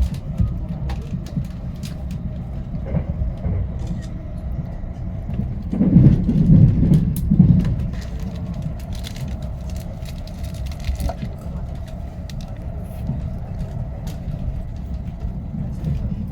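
A JR Limited Express train running, heard from inside the carriage: a steady low rumble with a faint steady hum and scattered light clicks. A louder low swell comes about six seconds in and lasts a second or two.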